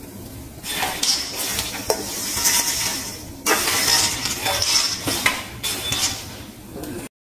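Roasted peanuts and garlic chips stirred with a metal spoon in a stainless steel colander: the nuts rattle and scrape against the metal in three stretches, with a few sharp clicks, and cut off abruptly near the end.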